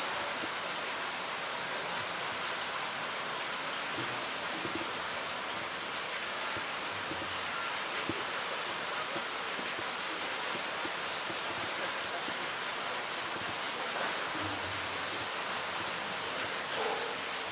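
Steady high buzzing of a summer cicada chorus over an unbroken rushing hiss.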